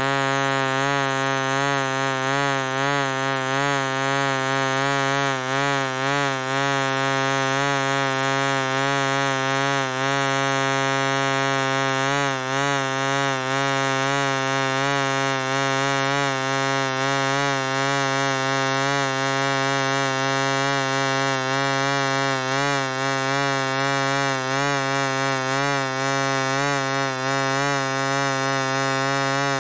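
A fly buzzing continuously: a steady, low buzzing hum with many overtones whose pitch wavers slightly up and down as it flies, with no pauses.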